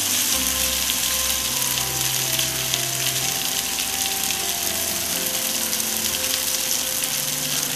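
Shredded chicken sizzling in a wok over a gas flame while being stirred with a slotted spatula, a steady hiss with faint scraping clicks. Soft background music of held notes plays underneath.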